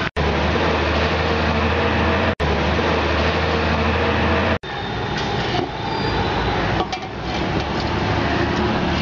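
Steady rushing noise of a gas burner under a large pot of boiling water, with a low hum through the first half. It cuts out sharply and briefly three times.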